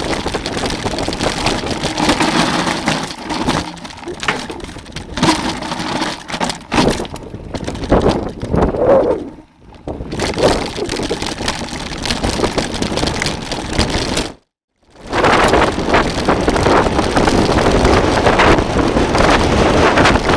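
Strong wind buffeting the microphone: loud, rough, gusting noise. It drops out briefly twice, the second time cutting to silence for about half a second.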